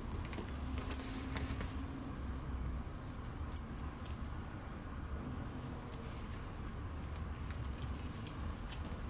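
Small metal clinks and jingling from a cat collar's buckle and ring as it is handled and fastened around a cat's neck, with a sharp click about a second in.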